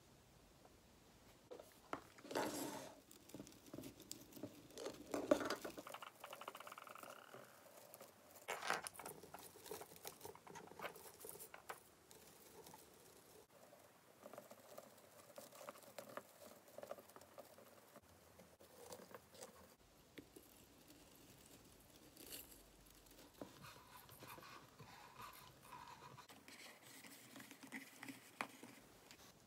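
Faint rustling of artificial pine branches and light clicks of red ball ornaments being hung on a small artificial Christmas tree, in irregular handling noises.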